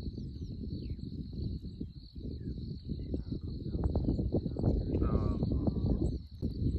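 Steady high-pitched insect chorus buzzing over an uneven low rumble, with a few short chirping calls and a brief pitched call about five seconds in.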